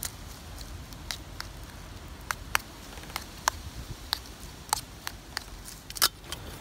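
Wood fire crackling in a small firebox stove: irregular sharp pops and ticks over a faint low rumble.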